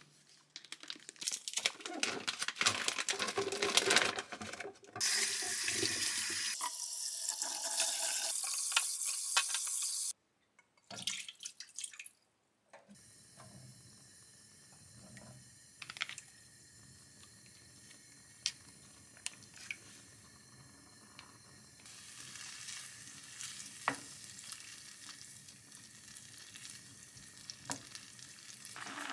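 Water running from a tap into a sink as a steady hiss for about five seconds, cutting off suddenly, with clatter and clicks before it; after that, quieter kitchen sounds with scattered sharp clicks.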